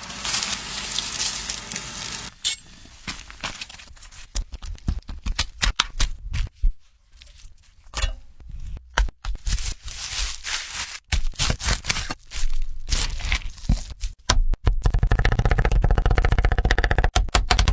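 Irregular cracking, scraping and tearing noises, then a fast, even run of rapid clicks in the last few seconds.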